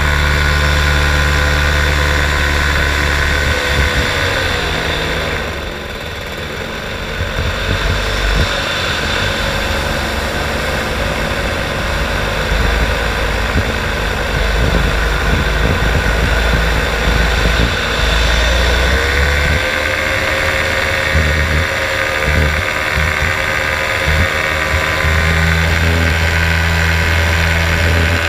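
Paramotor engine running in flight. It is throttled back about five seconds in, its pitch falling, runs lower with wind buffeting the microphone, then is throttled up again a little before two-thirds of the way through, its pitch rising back to a steady drone.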